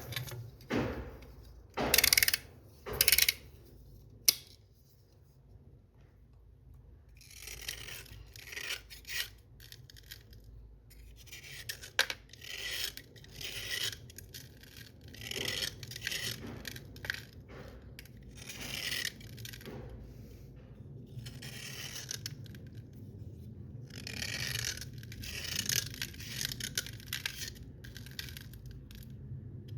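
Slate pencils being scraped, with a few loud short crunches in the first few seconds and then a long run of rasping scraping strokes, about one a second.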